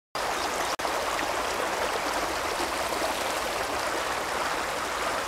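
Steady rushing of flowing river water, an even hiss without pitch or rhythm.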